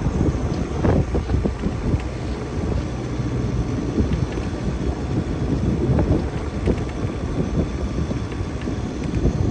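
Wind buffeting the microphone on a sailboat under way: a dense, gusty low rumble that stays steady throughout.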